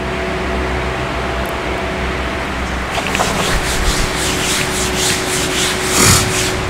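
Whiteboard marker writing being wiped off the board: an eraser or cloth rubbing back and forth. The strokes are most distinct from about three seconds in, about three a second, over a steady hiss.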